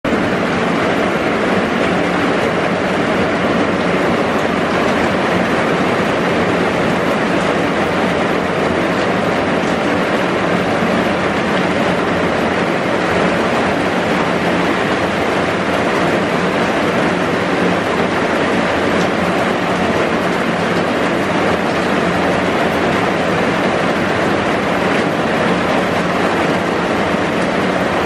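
Heavy rain falling steadily on a bus shelter and the flooded street around it, heard from inside the shelter as a dense, even hiss.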